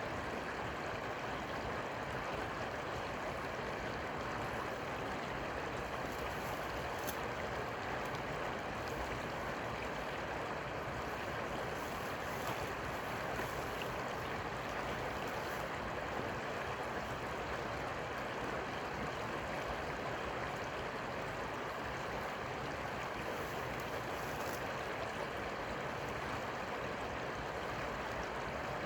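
Steady rushing of flowing river water, an even hiss with no let-up.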